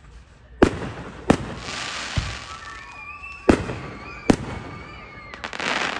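Aerial fireworks bursting: four sharp bangs and a weaker one, with crackling after them. Near the end comes a quick run of crackling pops.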